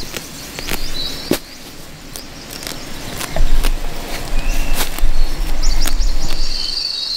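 Irregular sharp snaps and clicks of brush and twigs being handled in forest undergrowth, with a loud low rumble through the middle. An insect's steady high buzz starts near the end.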